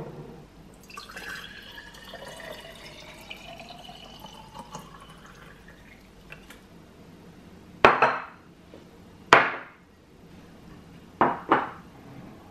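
Water poured into a glass jar, its pitch rising as the jar fills. This is followed by four sharp, ringing clinks in the second half.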